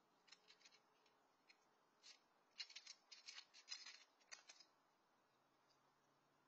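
Cat crunching dry kibble from a shallow metal pan: a run of faint, crisp crunches and clicks starting shortly after the beginning and stopping before five seconds in, densest in the middle.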